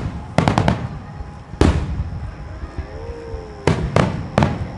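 Starmine fireworks shells bursting in a rapid barrage: sharp bangs in quick clusters, each trailing off in a rumbling echo.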